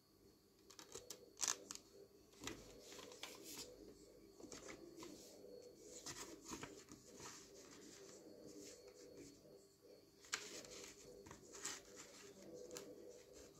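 Faint clicks, taps and rustles of a plastic CD jewel case and its paper booklet being handled: the disc taken from the case and the booklet leafed through.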